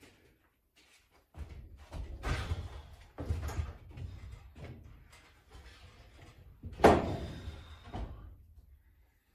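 Large wooden-framed mirror being handled into place against a wall: a series of bumps, knocks and scrapes, with the loudest sharp knock about seven seconds in.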